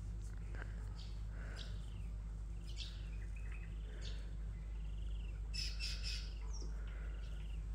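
Several wild birds calling: scattered short chirps and a few arched whistled notes, with a denser burst of calls about two thirds of the way in, over a steady low hum.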